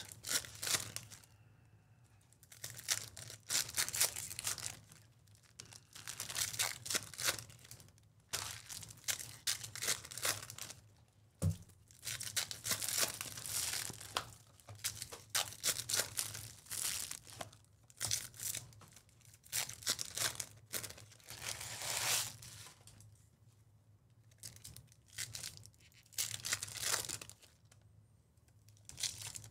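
Foil wrappers of Topps Chrome baseball card packs being torn open and crinkled by hand, in a string of short rustling bursts.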